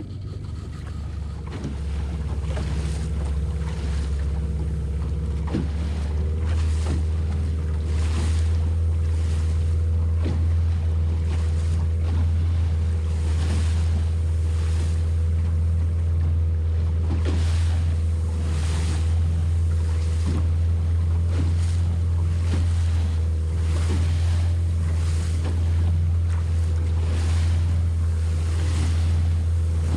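Motorboat under way on open sea: its engine drones steadily, with the hull slapping on waves every second or two and wind buffeting the microphone. The engine picks up over the first couple of seconds.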